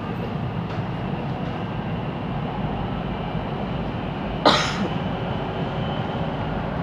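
Steady running rumble inside a Siemens Inspiro MRT train travelling between stations, with one short, sharp noise about four and a half seconds in.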